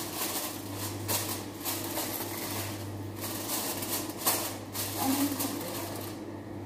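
Aluminium foil crinkling as it is pressed and folded around the rim of a pot, in a string of short rustling bursts that stop about six seconds in. A steady low hum runs underneath.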